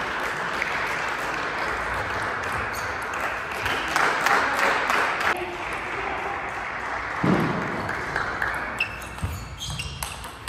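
Table tennis rally: the celluloid ball clicking sharply off the paddles and the table, over a steady wash of hall noise through about the first five seconds.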